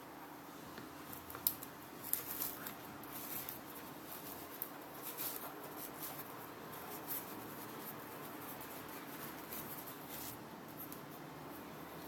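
Light handling noise during an unboxing: scattered soft clicks and rustles, from about a second and a half in until about ten seconds in, over a faint steady hum.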